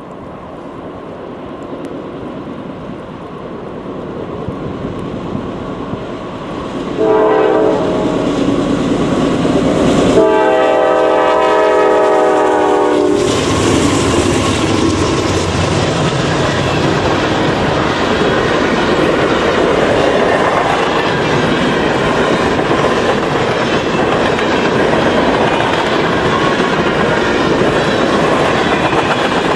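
A Norfolk Southern diesel train approaches with a rising rumble and sounds its horn twice: a short blast about seven seconds in, then a longer one of about three seconds. It then passes close by with a loud, steady rumble and its wheels clacking over the rails.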